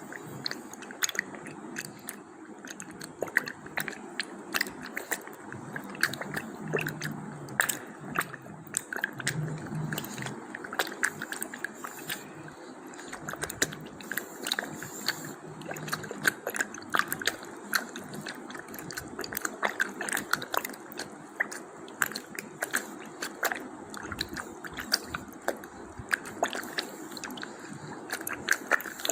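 Waterfall foley made with the mouth and a glass of water: a continuous wet crackle of many small pops and clicks over a steady rush.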